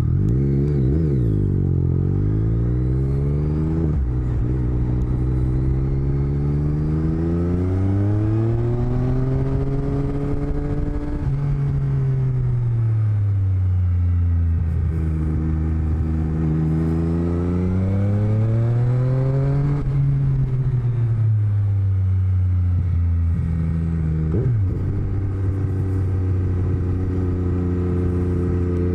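Motorcycle engine heard through a helmet-mounted microphone, pitch rising under throttle and falling off several times, with a sudden drop about four seconds in like a gear change and another near the end, then running at a steady pitch.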